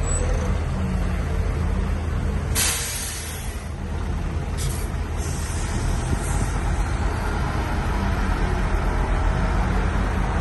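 Heavy diesel engine running steadily, with a sudden loud air hiss about two and a half seconds in that fades over a second or so, and a shorter hiss about two seconds later.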